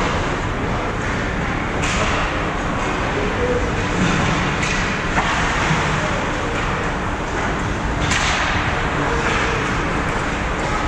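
Ice hockey game noise: a steady scraping hiss of skates on ice, broken by sharp echoing knocks about two, five and eight seconds in.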